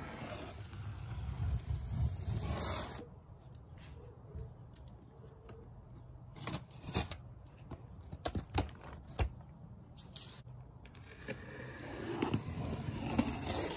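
Cardboard shipping box and packaging being torn open by hand. A ripping noise at the start, then scattered knocks and clicks as the parts and wrapping are handled, and more ripping and rustling near the end.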